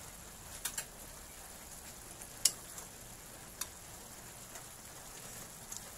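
Vegetables sizzling softly in a wok of pinakbet, with a few short clicks of a cooking utensil against the pan as it is stirred, the loudest about two and a half seconds in.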